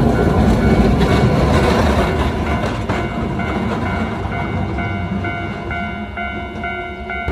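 Hankai Tramway streetcar No. 162, a retro Mo 161-type tram, rumbling over the rails as it pulls away, its sound fading after about three seconds. A level-crossing warning bell rings steadily about twice a second.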